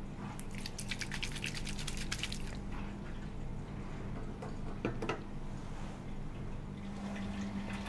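Soil suspended in Ringer's solution sloshing inside a capped 50 ml plastic centrifuge tube shaken hard by hand: a rapid rattling slosh for about two seconds, then a couple of light knocks a few seconds later.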